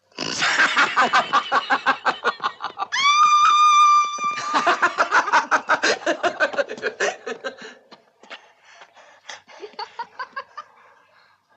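High-pitched, rapid laughter in quick pulses, broken about three seconds in by a long held shriek, then laughing again and trailing off after about eight seconds.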